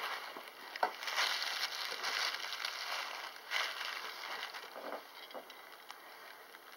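Rustling and light handling noises with a few soft clicks, growing quieter near the end.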